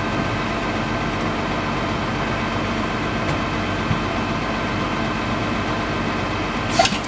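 Idling engine of a 1999 Blue Bird TC2000 school bus, a steady drone, with one brief sharp sound near the end.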